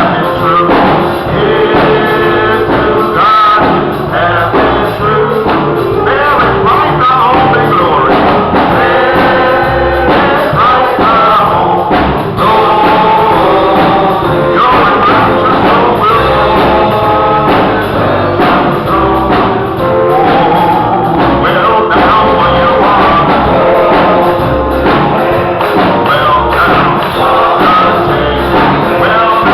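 Voices singing a gospel song over instrumental accompaniment with a steady bass line.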